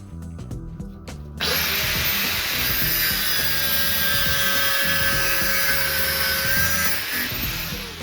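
A power tool starts about a second and a half in, runs steadily with a whine for about six seconds, and winds down near the end, over background music.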